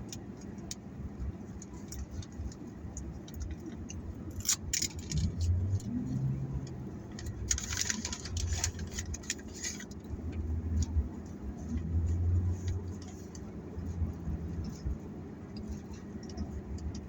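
Rustling, crinkling and clicking handling noises over a low steady hum inside a car, with the thickest rustling a few seconds in and again near the middle.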